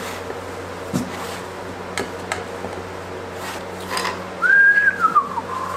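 A few sharp clicks and taps as the lid of a metal gallon paint can is worked off, then a high whistled tone that holds, dips and settles a little lower for about a second near the end.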